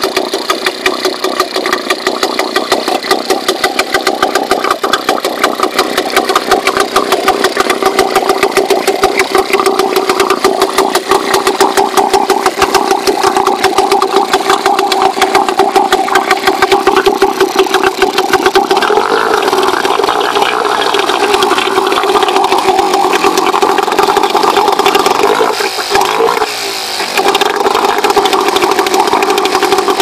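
British Seagull 102 outboard, a single-cylinder two-stroke, running steadily on test with its leg in a tub of water, making a rapid, even beat. Its revs rise a little around the middle, then dip briefly near the end and pick up again.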